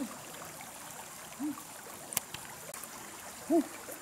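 Steady trickle and flow of a small forest stream. Three short pitched sounds that rise and fall cut through it, the loudest near the end, with a sharp click about two seconds in.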